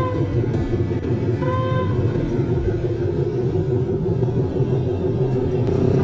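Motorcycle riding sound: the engine runs steadily under a constant low rumble of wind and road noise.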